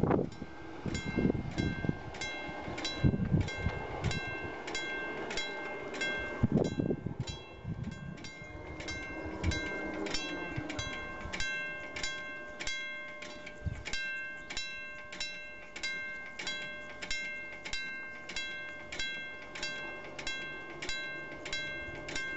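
Background music of plucked-sounding notes repeating at an even pulse of about two a second. Low rumbling noise runs under it for the first seven seconds or so, then fades.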